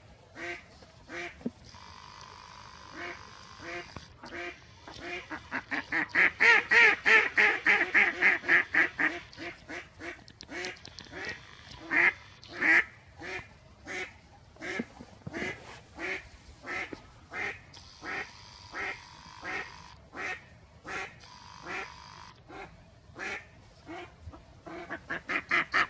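Live decoy hen duck quacking over and over, with a long run of rapid, loud quacks about six to nine seconds in, the call that draws wild drakes to the decoy.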